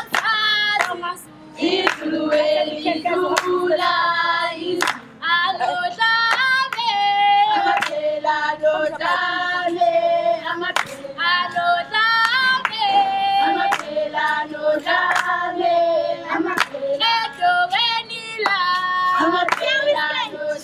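A group of girls singing a Zulu dance song together, with sharp hand claps keeping the rhythm as accompaniment for a dancer.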